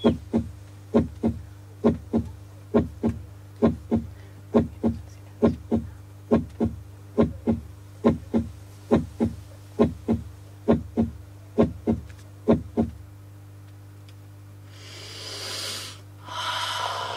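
A heartbeat-like pulse: pairs of deep, short thumps, each falling in pitch, a little under one pair a second, over a steady low hum. The pulse stops about thirteen seconds in, and two short swells of hiss come near the end.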